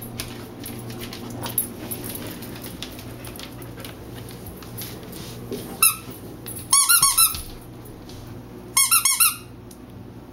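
Rubber squeaky dog toy squeezed: a single squeak, then two quick bursts of rapid squeaks in the second half.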